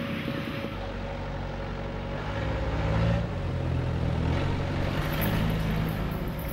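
Motor vehicle engine running with a steady low hum, growing louder about two seconds in.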